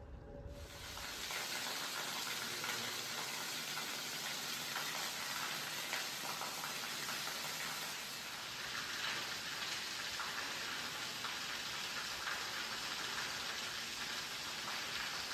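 Steady pattering hiss of falling water, like rain, starting abruptly about half a second in.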